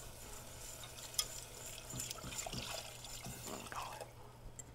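Hot chicken broth poured slowly from a glass measuring cup into a stainless saucepan of roux, a faint liquid pouring sound, while a wire whisk clicks lightly against the pan, sharpest about a second in. This is the broth going into the butter-and-flour roux to make the pot-pie sauce.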